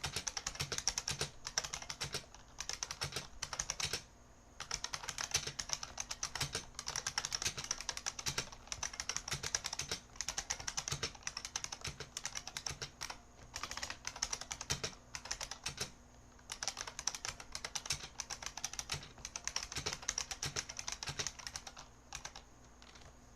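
IBM Model M buckling-spring keyboard being typed on, a rapid run of loud key clacks with a few brief pauses, the typing stopping near the end.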